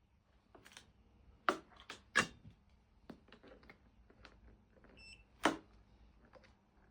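Several sharp clicks and knocks of hands and tools handling parts of an electric bike's wiring, the loudest three about a second and a half, two and five and a half seconds in, with a very short high beep just before the last one.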